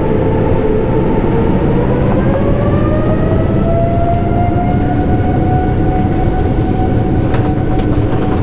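Airliner turbofan engines heard inside the cabin during the takeoff run: a loud, steady rumble with a fan whine that rises in pitch a couple of seconds in and then holds steady. A few short knocks near the end.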